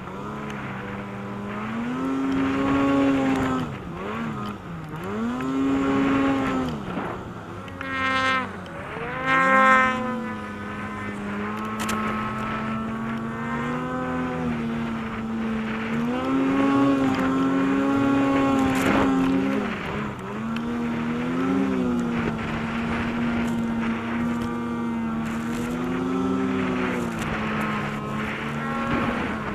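Arctic Cat M8000 snowmobile's 800 cc two-stroke engine, heard from the rider's seat, revving up and dropping back again and again as it is throttled through carving turns in deep powder. The highest revs come about eight to ten seconds in, and after that it mostly holds a steadier pitch with shorter rises.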